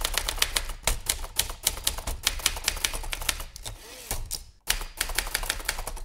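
Typewriter keys striking in quick, uneven succession, thinning to a lull between about three and four and a half seconds before the typing picks up again.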